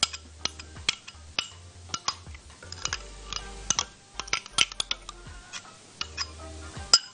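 A spoon clinking and scraping against a cup as mayonnaise is scooped into a blender jar: many short, sharp taps at an irregular rate, several a second.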